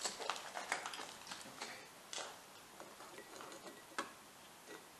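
Faint, irregular clicks and light crackles, a few each second at first and thinning out, with one sharper click about four seconds in.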